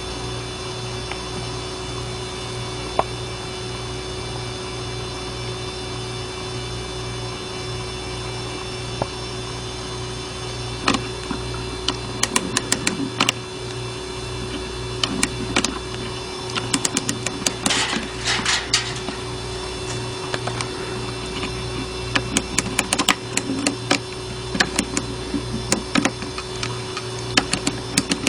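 Irregular clicks and small metallic rattles from a Westclox wind-up alarm clock being handled, starting about a third of the way in, with a denser burst of clicking about two-thirds through. A steady hum runs underneath.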